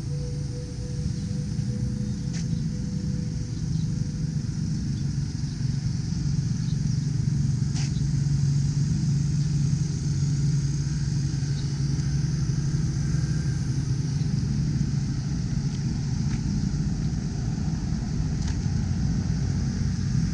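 A motor vehicle's engine running close by: a steady low drone that grows a little louder around the middle, with a few short clicks over it.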